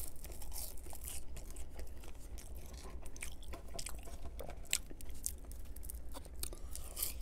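Close-miked chewing of a mouthful of McDonald's french fries dipped in barbecue sauce: wet mouth clicks and smacks, many short sharp clicks in an uneven run.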